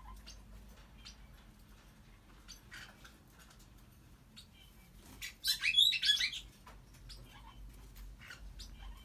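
African grey parrot making scattered soft clicks and chirps, then one loud, wavering, high-pitched call about five seconds in that lasts a second or so.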